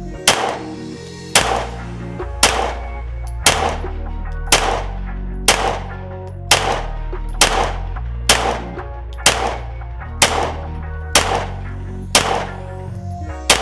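Shots from a 9mm Glock 19X pistol fitted in a CAA Micro Roni carbine conversion kit, fired at a steady pace of about one a second, with background music and a heavy bass line underneath.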